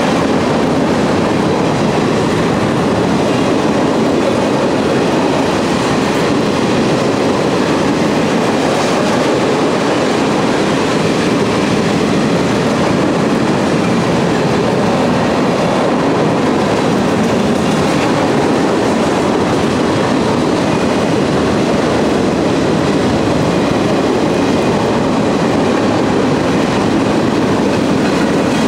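Freight train cars rolling past at close range: the steady, unbroken noise of steel wheels on rail as car after car goes by.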